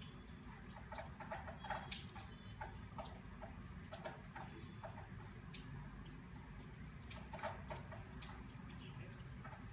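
Crochet hook working yarn in single crochet stitches: soft, irregular small clicks and ticks, over a low steady hum.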